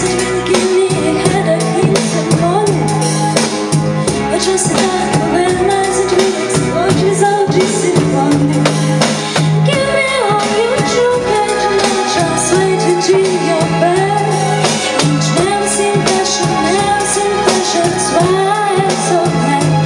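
A woman singing a pop song into a microphone, her voice amplified over instrumental accompaniment.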